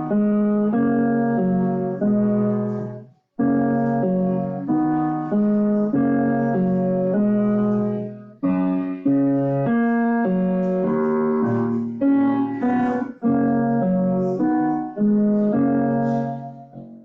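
Piano playing the teacher's duet accompaniment to a primer-level piece, with chords changing on a steady beat. There is a brief break between phrases about three seconds in, and the last chord fades away at the end.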